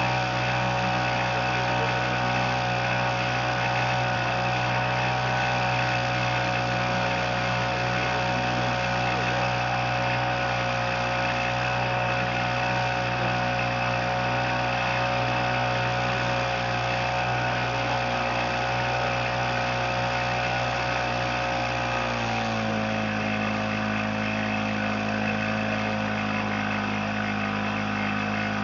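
Small outboard motor on a dinghy running steadily under way. About 22 seconds in it drops to a lower, steady pitch as the throttle is eased back.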